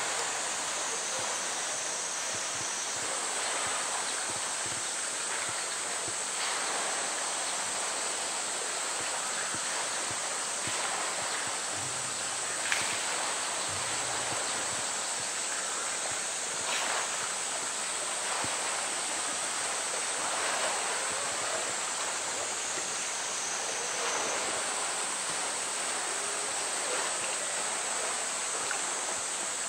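Pool water splashing and lapping steadily as a polar bear swims through it. There is a sharp knock about 13 seconds in and a lighter one a few seconds later.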